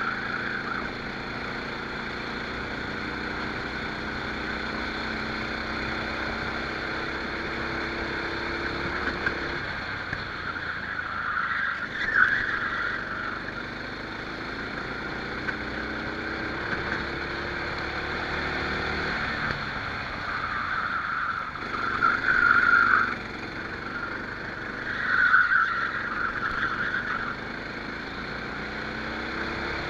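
Rental kart engine heard onboard, its pitch climbing as it accelerates and falling away each time it lifts for a corner, several times over. Several short, louder bursts of hiss ride over the engine.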